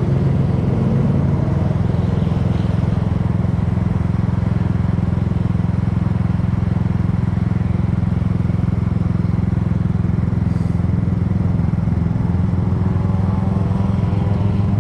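Kymco People scooter engine and exhaust running steadily at cruising speed, with rushing wind noise over it. The engine note climbs a little near the end.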